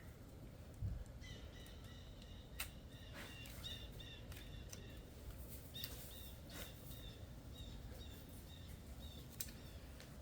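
Faint bird chirping: a long series of short, high notes repeated at an even pace, with a few light clicks from hands working on the engine.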